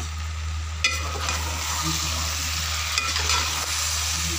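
Mixed vegetable curry sizzling in an aluminium pot while a metal ladle stirs it, with a sharp clink of the ladle against the pot about a second in and lighter scrapes after, over a steady low hum.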